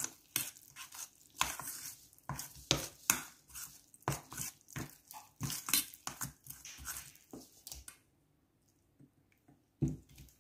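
A metal spoon stirring thick flour batter in a stainless steel bowl, clinking and scraping against the bowl in quick irregular strokes. The stirring stops for a moment near the end, with one last clink.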